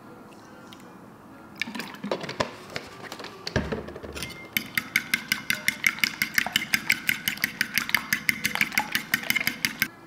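A metal fork whisking eggs and milk in a ceramic bowl. First a few scattered clinks as stirring begins, then from about four and a half seconds in a fast, even run of clinks as the fork beats against the side of the bowl.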